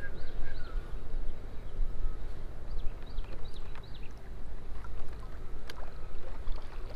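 Steady low rumble of wind and water noise on an action-camera microphone in a kayak, with birds chirping now and then in high, short calls.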